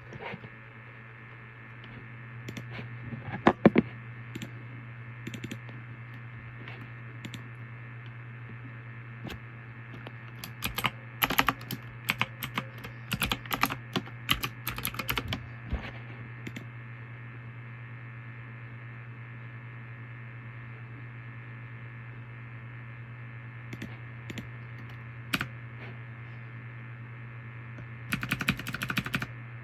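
Typing on a computer keyboard in bursts: a few keystrokes early, a quick flurry in the middle, a lone click later and another short burst near the end. A steady low hum runs underneath.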